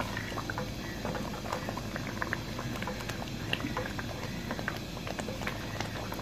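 Spinach and mutton curry (palak gosht) bubbling and spattering in a large aluminium pot while being stirred with a wooden spoon: many small irregular pops over a low steady hum.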